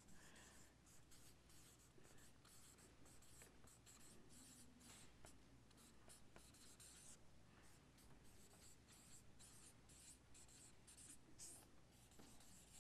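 Faint scratching of a marker writing on a paper flip-chart pad: many short strokes in quick, irregular runs, over a low steady room hum.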